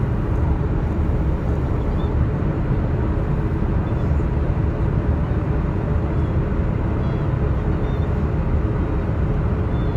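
Steady cabin noise of a Boeing 787-8 airliner in flight: an even low rumble of engines and airflow heard from inside the cabin.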